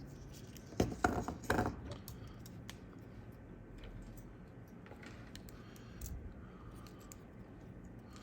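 Small metal tools handled on a workbench: a quick cluster of clicks and rattles about a second in, then scattered faint ticks over the steady hum of an air-conditioning unit.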